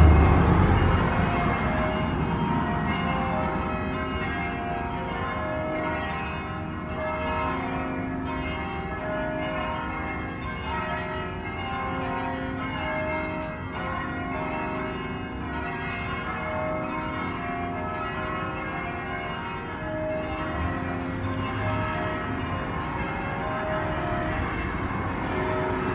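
Church bells ringing a sequence of notes, each note ringing on briefly and the pattern repeating. A loud low rumble dies away over the first second or two.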